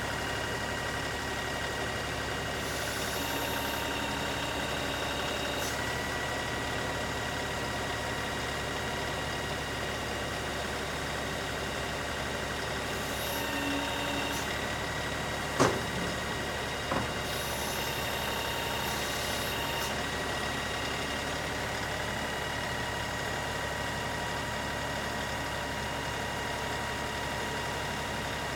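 LS XR3135 compact tractor's diesel engine running steadily, its pitch shifting a little now and then. About halfway through come a sharp knock and a fainter one about a second later.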